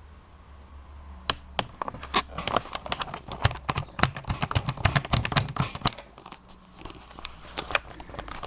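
Close handling noise: a quick, irregular run of sharp clicks and crinkly rustles that starts about a second in and stops about two seconds before the end, with a few more clicks near the end.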